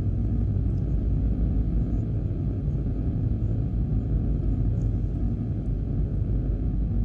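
Steady deep rumbling drone with no clear beat, tune or separate events: a low ambient soundtrack bed.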